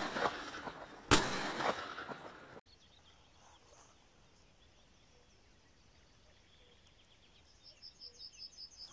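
A single sharp bang about a second in, followed by a hissing tail that dies away over about a second and a half and then cuts off. After that there is faint open-air quiet with small birds calling, ending in a quick run of short high notes.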